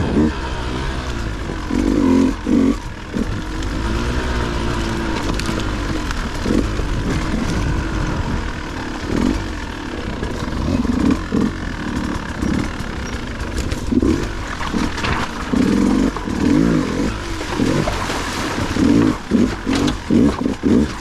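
Dirt bike engine revving up and down over and over, in short bursts of throttle that rise and fall in pitch.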